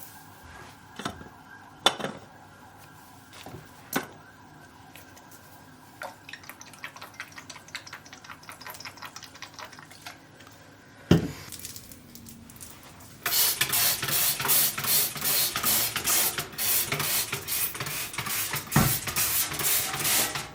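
A few sharp knocks and small handling clatters, a thump, then water rushing from a tap into a sink, beginning about two-thirds of the way in.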